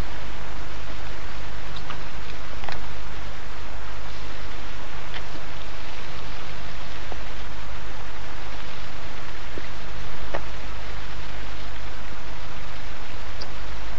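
Steady rushing of river water, an even hiss-like noise with a low hum underneath and a couple of faint clicks.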